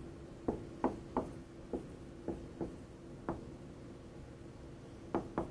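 Marker writing on a whiteboard: short, light taps and strokes as each character is put down, about a dozen, irregularly spaced, bunching again near the end. A faint steady hum lies underneath.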